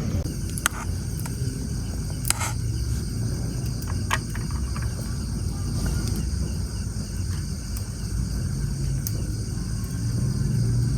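Insects, crickets among them, chirring steadily over a constant low rumble, with a few sharp clicks in the first few seconds.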